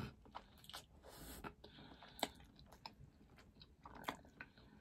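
Close-miked chewing of a sauce-covered boiled egg: quiet, wet mouth clicks and lip smacks at irregular intervals, the sharpest about two seconds in.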